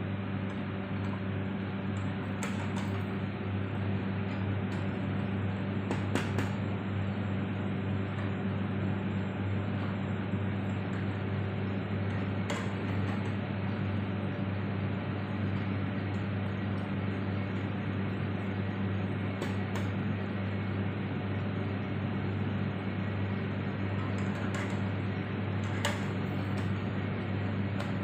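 A steady low hum with an even hiss beneath it, unchanging throughout, with a few faint clicks scattered through it.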